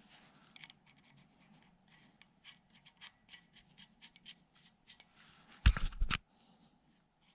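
Small metal washers and spacers being handled and fitted onto the end of a drill grinder's motor shaft: a run of light clicks and scratches, then a short cluster of loud knocks nearly six seconds in.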